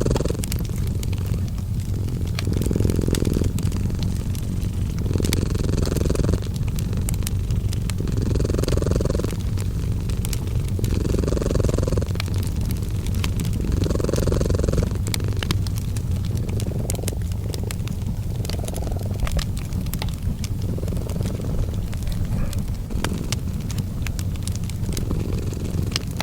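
A cat purring, a steady low rumble that swells and eases about every three seconds, over fireplace crackling with frequent sharp pops.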